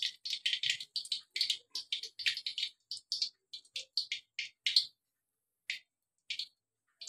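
Hot cooking oil in a kadhai crackling and spitting in short sharp pops, dense at first and thinning to a few scattered pops after about five seconds, as the oil settles once the fried green chillies are lifted out.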